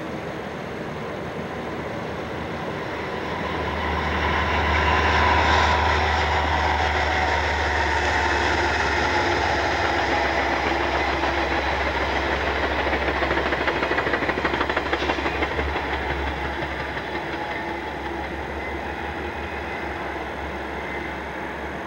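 Amtrak passenger train led by a GE Genesis diesel locomotive passing: the locomotive's low engine rumble builds to its loudest about five seconds in, then the cars roll by with a steady rushing and a run of light wheel clicks, fading toward the end.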